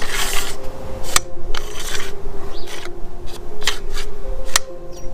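Wooster Sherlock paint-stick pole and parts being handled: rubbing and scraping with a few sharp clicks, over a faint steady hum.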